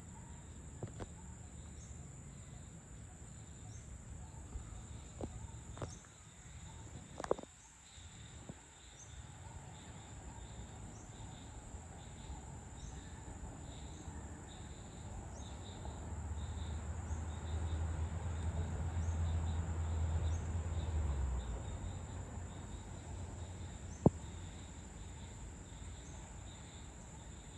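Evening insect chorus: a steady, high-pitched cricket drone with small chirps repeating every second or two. A low rumble swells and fades in the middle, and a single sharp click sounds near the end.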